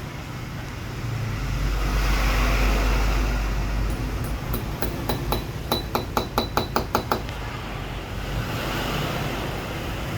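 A quick run of about a dozen sharp metallic taps, roughly five a second, after a low rumble in the first few seconds.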